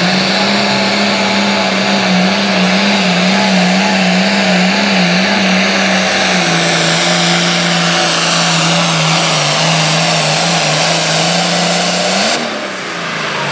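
Turbocharged International diesel tractor engine running under full load while pulling a weight-transfer sled, a steady loud drone whose pitch steps down slightly about halfway through. Near the end the pitch briefly rises, the engine drops off in loudness, and a high whine slides down.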